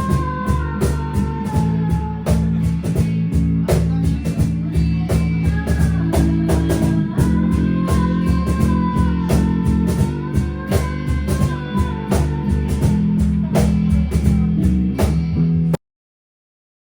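Rock band jamming: a guitar line over bass and steady drum hits. The music cuts off suddenly near the end.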